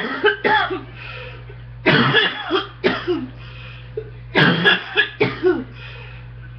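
A woman's chesty cough from a chest cold: three bouts, each a quick run of several hacking coughs, coming about every two seconds.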